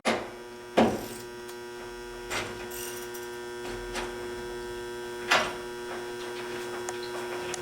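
Steady electrical hum in a boiler room, broken by sharp knocks from work on the boiler: one right at the start, a loud one just under a second in, a lighter one past two seconds and another loud one past five seconds.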